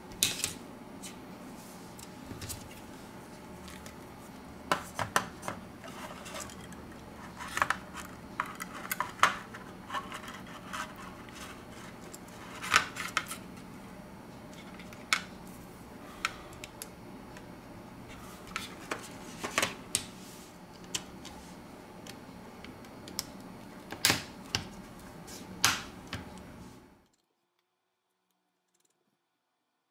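Irregular clicks and taps of a Xiaomi Pocophone F1's plastic middle frame and small tools being handled and pressed into place during reassembly, over a steady low hum. The sound cuts to near silence a few seconds before the end.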